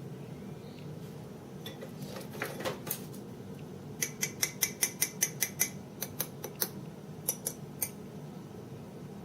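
Light metallic taps and clinks in quick runs, about five a second at their fastest, over a steady low hum.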